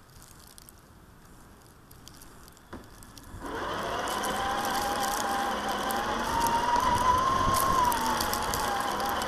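Quiet at first, with a single click, then about three and a half seconds in a Traxxas TRX-4 RC crawler's electric motor and gears start up. They run with a whine that rises in pitch and falls back as the truck drives over snow.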